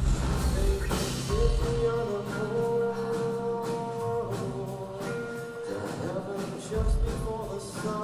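Background music: long held melodic notes over a light, regular beat.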